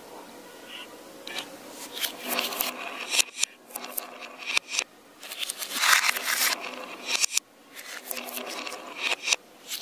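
Glass marbles rolling through the S-curved grooves of a wooden wavy slope, clacking against each other and the wood in irregular runs of clicks, busiest about six seconds in.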